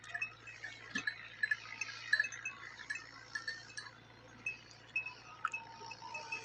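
Small livestock bells tinkling irregularly with light high clinks while goats graze.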